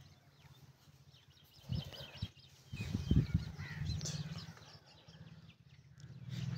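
A puppy's high-pitched squeaks and whines while play-wrestling with a larger dog, with a few soft bumps about two and three seconds in.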